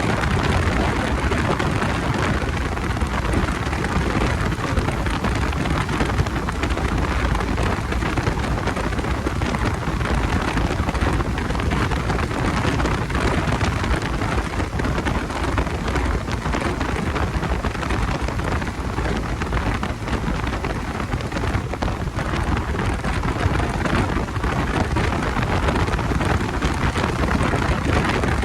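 Steady rushing wind and road noise from riding a Bajaj Dominar 250 motorcycle.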